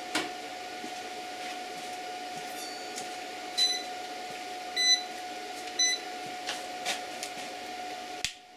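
Three short high beeps about a second apart from a digital clamp meter as it is switched on and set, with a few handling clicks, over a steady electrical hum that cuts off suddenly near the end.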